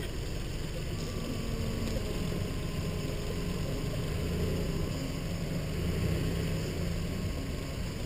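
Car moving slowly with its engine running: a steady low rumble with a faint hum.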